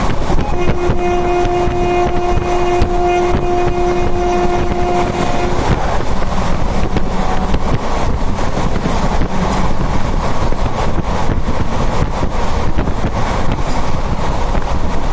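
Moving passenger train heard from an open window: steady rumble of wheels on the track with wind buffeting the microphone. From about half a second in, a single long steady horn blast sounds for about five seconds, then stops.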